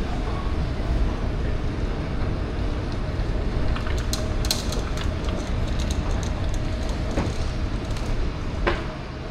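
Steady low rumble of a moving vehicle heard from inside, with a cluster of light clicks or rattles about four to five seconds in.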